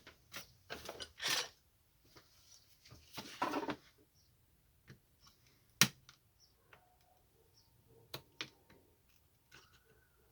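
A screwdriver prying and poking at the plastic case of a laptop battery pack: short bursts of scraping and scattered sharp plastic clicks. The loudest click comes about six seconds in, and two more follow about two seconds later.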